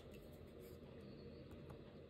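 Near silence: low room hum and hiss, with a click at the very start and a few faint ticks.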